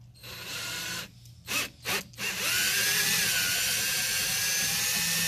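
Cordless drill drilling out the stripped horn-button screw holes in a VW Beetle's aluminium steering-wheel hub. A short first run is followed by three quick blips of the trigger, then a steady run with a motor whine from about two and a half seconds in.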